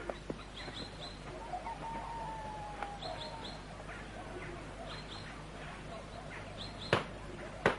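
Small birds chirping in short high bursts. Near the end come two sharp cracks, a rod lashing a boy's ankles.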